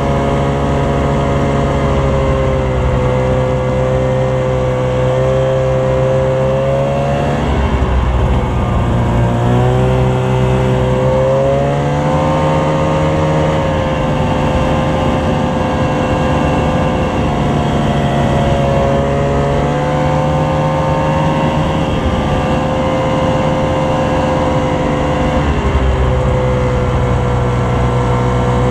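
Snowmobile engine running steadily under load, its pitch dropping and climbing again a few times as the throttle is eased and reopened.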